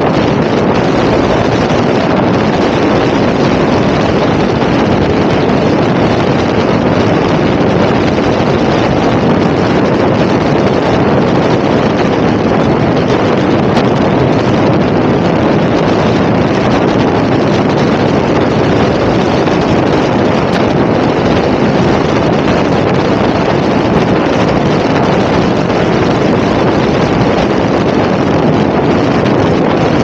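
Steady, loud wind rush over the microphone while riding a Honda Click 125 scooter, with the scooter's engine and road noise blended underneath. It stays unchanged throughout.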